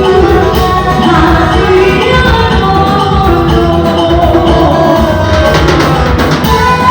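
Loud band music with a voice singing over it: held melody notes over a steady low accompaniment, without a break.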